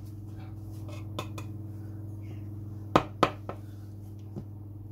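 A kitchen knife trimming pastry and clicking against a glass-ceramic hob: a few light taps, then two sharp clicks in quick succession about three seconds in. A steady low hum runs underneath.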